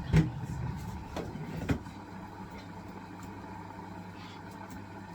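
Hisense washing machine running on its wool cycle: a steady motor hum, with three short knocks in the first two seconds, the first the loudest.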